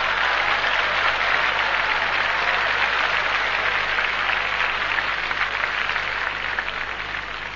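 Audience applauding, dense and steady, dying away near the end.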